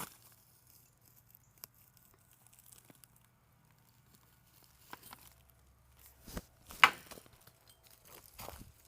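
Dry leaves and twigs crunching and rustling in a few separate bouts after a quiet stretch. The loudest is a sharp crack about seven seconds in.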